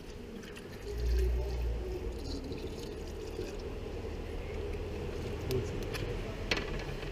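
Hot engine oil pouring from the A 45 AMG's M133 sump into a drain pan, a steady liquid stream, with a sharp click about six and a half seconds in.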